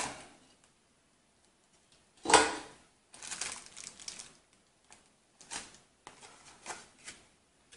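Rigid clear plastic clamshell packaging being pried open and handled. There is one sharp plastic crack about two seconds in, then scattered short clicks and crinkles.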